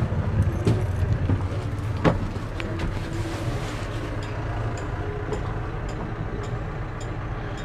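Steady low engine hum, likely an idling engine, with a single knock about two seconds in.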